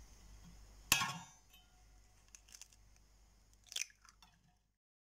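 A hen's egg struck sharply once on the rim of a stainless steel bowl about a second in, with a short metallic ring. Small crackles follow as the shell is pried apart, with a brief cluster of cracks near the end.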